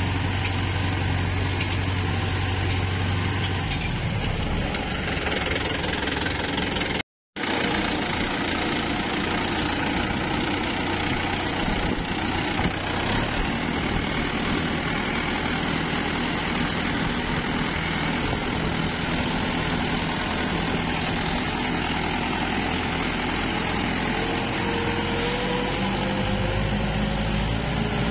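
Mahindra Yuvo tractor's diesel engine running steadily under load as the tractor drives through a wet, muddy field. The sound drops out for an instant about a quarter of the way in, and near the end the engine climbs in pitch as it pushes into water.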